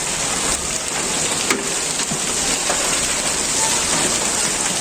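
Heavy downpour of rain and hail: a dense, steady hiss, with a few sharper ticks of single impacts.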